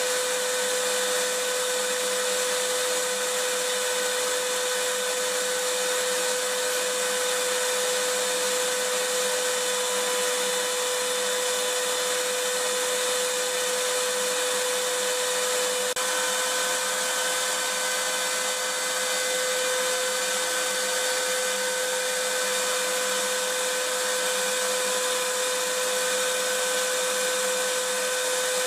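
Vacuum cleaner motor running steadily: a constant rushing hiss with a steady, unchanging whine.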